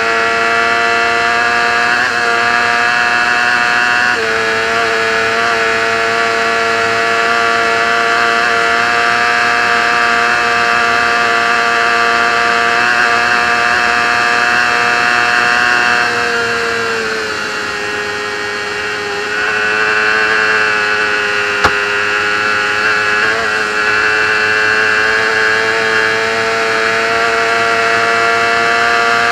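Racing motorcycle engine at high revs, heard onboard together with wind rush. It holds a high, steady pitch with quick steps at gear changes. About halfway through the revs fall as the rider eases off, then they climb back up to full speed. There is one sharp click about three-quarters of the way in.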